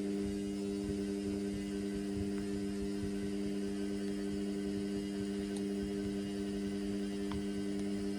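Indesit washing machine's pump running with a steady electrical hum, with rough churning of water underneath.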